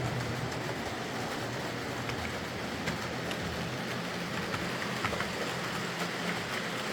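Bachmann OO gauge Class 47 model locomotive running steadily along the track: a low motor hum and wheel noise, with a few light clicks.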